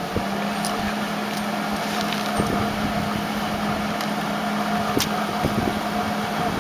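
Flux-core wire-feed welder striking an arc and welding steadily: a continuous crackling hiss over a steady hum from the machine, starting just after the trigger is pulled.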